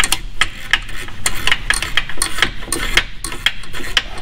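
Hand ratchet wrench clicking in quick, irregular runs of sharp clicks as the nut on the alternator's main power cable is worked loose.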